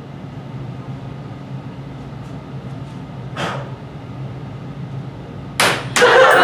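A low steady hum with a short burst of noise about halfway, then near the end the audience breaks into laughter and clapping.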